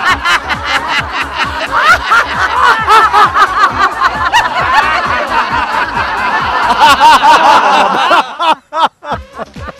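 A group of men and women laughing loudly together, many voices at once in quick ha-ha bursts: deliberate laughter-yoga 'gradient laughter' at its loudest stage. The laughter breaks off about eight seconds in, followed by quieter laughter.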